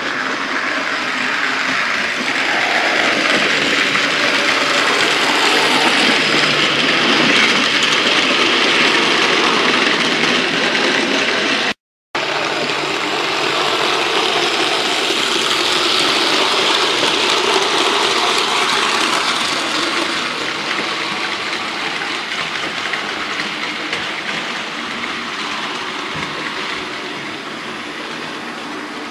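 Model 0-6-0 tank locomotive with a small five-pole electric motor running on the layout's track: steady motor whir and wheel rumble on the rails. It drops out for a moment about twelve seconds in and grows gradually fainter over the last several seconds.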